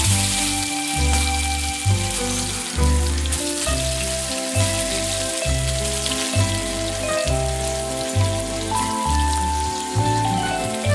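Background music with a heavy bass beat about once a second, over a steady hiss of food frying in a pan.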